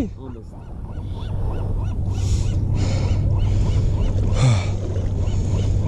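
Wind rumbling on the microphone over shallow tidal water, with water splashing three times as arms dig into the flooded sand.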